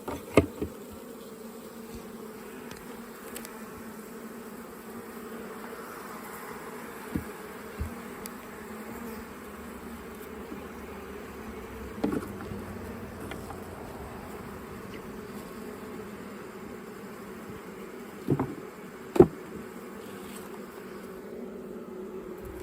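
Honeybee colony buzzing steadily around an open hive, with a few sharp knocks scattered through, the loudest late on.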